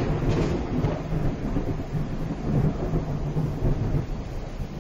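Thunder rolling in a low, long rumble that slowly dies away, over the steady hiss of rain.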